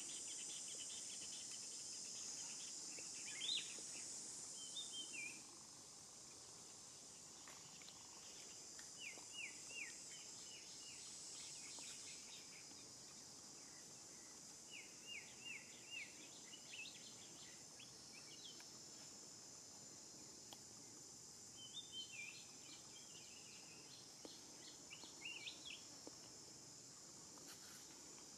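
Steady high-pitched insect drone, a little quieter after about five seconds, with short runs of quick descending bird chirps every few seconds.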